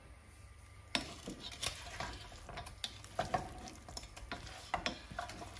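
Chicken wings being stirred through a thick barbecue sauce in a pan: a utensil scraping and knocking against the pan in irregular strokes, starting about a second in.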